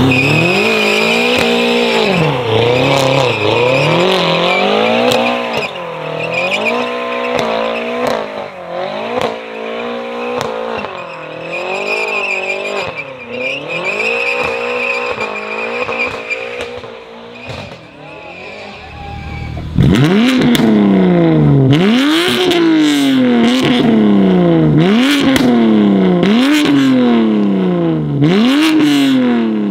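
A BMW M car's engine revving hard and unevenly through a burnout, with a steady tyre squeal over it. After about 20 seconds a BMW F80 M3's twin-turbo straight-six is free-revved at a standstill, about six quick blips, each climbing sharply and falling back.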